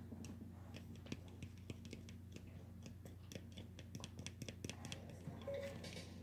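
Plastic utensil stirring glue and contact lens solution as it starts turning into slime: faint, irregular small clicks and scrapes, several a second.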